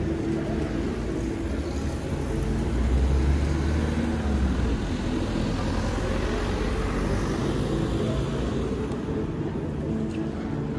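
City street traffic passing close by: steady road noise, with a vehicle's low engine rumble swelling about three seconds in and then easing off.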